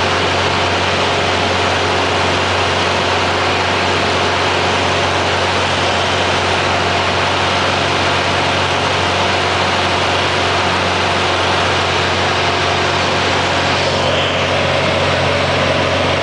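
Single-engine light plane's piston engine and propeller running steadily at takeoff power, heard from inside the cabin as the plane takes off.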